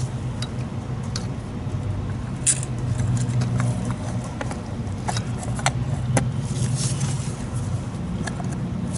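Scattered small clicks and taps of a Yamaha V-Star 1100 carburetor's parts being handled as its black top cover is fitted back on over the slide spring. Under them runs a steady low hum.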